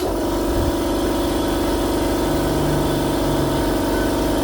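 Tiger GDG35 3 hp oil-free silent air compressor, with its two intake air filters fitted, kicking on suddenly at the start and running with a steady hum.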